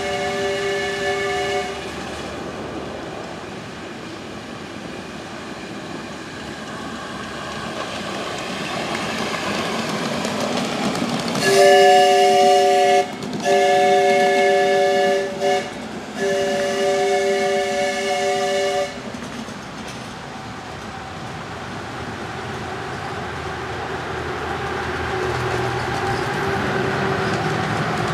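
Chime steam whistle of a 7.5-inch gauge live steam locomotive, sounding briefly at the start and then three long blasts in the middle. Under it runs the steady clatter of the miniature train's wheels on the track, growing louder near the end as a locomotive comes closer.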